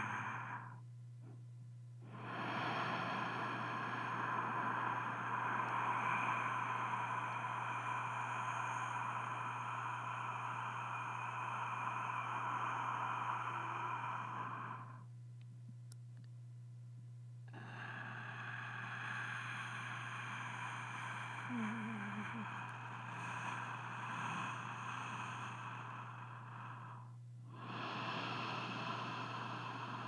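Long, breathy sustained sounds over a steady low hum. Each breathy stretch runs roughly ten seconds, with short breaks about a second in, about fifteen seconds in and near the end.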